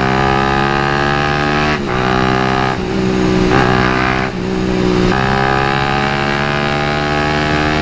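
Suzuki Satria FU's 150 cc single-cylinder engine, breathing through an aftermarket Lone Rider exhaust, pulling under acceleration on the road. Its pitch climbs slowly and dips briefly four times as the gears change.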